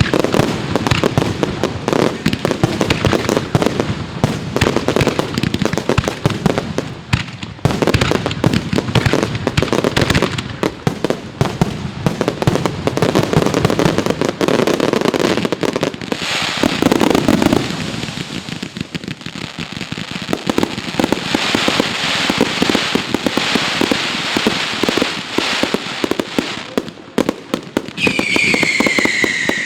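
Fireworks going off: a dense, continuous volley of rapid bangs and crackling, with a falling whistle near the end.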